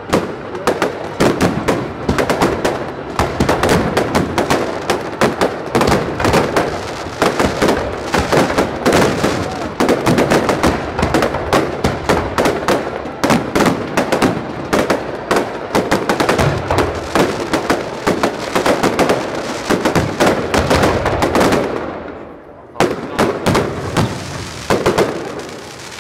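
Fireworks display's closing barrage: aerial shells bursting in rapid, near-continuous loud bangs with crackling stars for about twenty-two seconds. The barrage then thins to a single bang and lighter crackle near the end.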